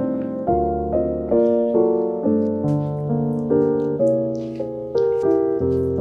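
Background piano music, a new note or chord struck about twice a second.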